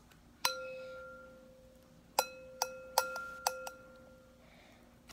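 A spoon knocked against the rim of the slime-mixing bowl to shake slime off it: one strike, then five more in quick succession, each leaving the bowl ringing with a clear tone that dies away.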